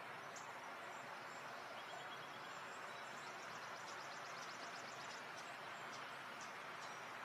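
Faint, steady background hiss with light, scattered high-pitched ticks and chirps.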